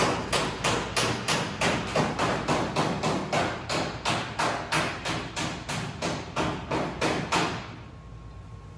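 A steady run of sharp knocks or blows, about three a second, which stops near the end.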